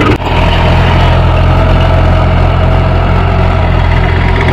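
Mahindra 415 DI tractor's four-cylinder diesel engine running steadily while pulling a spring cultivator through the soil.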